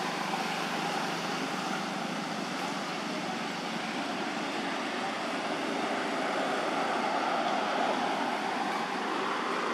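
Steady rushing noise of road traffic, swelling a little in the second half.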